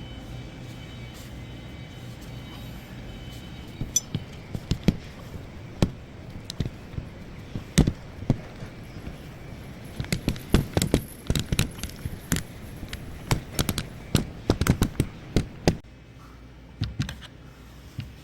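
Irregular sharp knocks and taps, many in quick clusters, over a steady low hum that stops shortly before the end.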